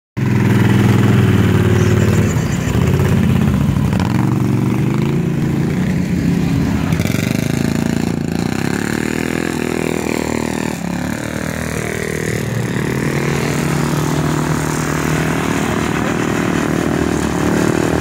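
ATV engines running and revving as the quads ride past, the pitch rising and falling again and again.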